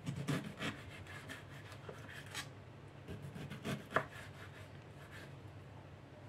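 Kitchen knife slicing bamboo shoots on a wooden cutting board. A run of quick, light cuts fills the first couple of seconds, then a few more follow, the sharpest about four seconds in.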